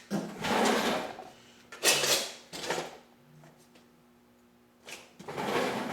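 Wire cutters working a 12-volt wire end, stripping its insulation: several short scraping, rustling bursts in the first three seconds and another from about five seconds in.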